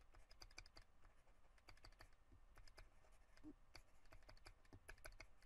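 Faint, irregular ticks and taps of a stylus writing on a tablet screen, several a second.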